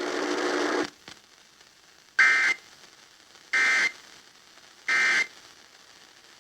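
Emergency Alert System SAME end-of-message code: three short, identical bursts of high two-tone data warble, about 1.3 seconds apart, marking the end of the flash flood warning broadcast. A burst of hiss cuts off just before, under a second in.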